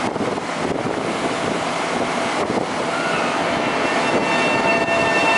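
Bombardier M7 electric multiple unit starting to pull out of a station: a steady rushing noise, and from about halfway in, the whine of its traction motors sets in as several steady high tones held together.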